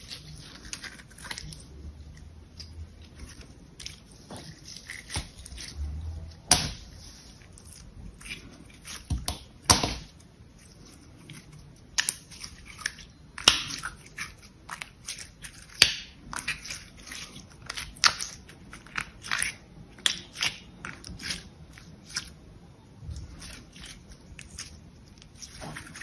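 Translucent green slime squeezed and stretched by hand, making sharp clicks and pops at irregular intervals, a few of them much louder than the rest.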